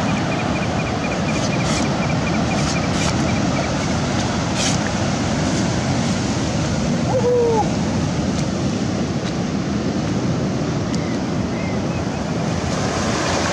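Ocean surf breaking steadily on the beach, with wind buffeting the microphone.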